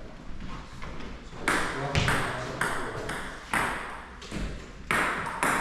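Table tennis ball being hit and bouncing in a rally: sharp pinging clicks about every half second, with a pause of about a second near the end before two more hits.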